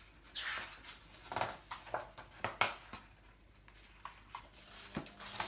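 Pages of a hardback picture book being handled and turned: a series of short papery swishes and sharp taps.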